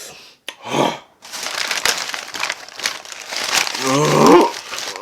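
Crinkling, crackling noise of food being handled and eaten close to the microphone. It runs for about three seconds and ends in a short voiced moan.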